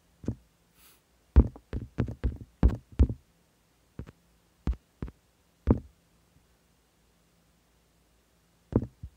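Typing on a smartphone's on-screen keyboard: a quick run of short, sharp taps, then a few slower ones, and two more near the end.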